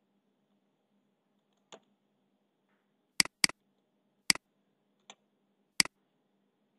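Computer mouse clicking: sharp single clicks, two in quick succession about three seconds in, then one a second later and another near the end, with a couple of fainter clicks between.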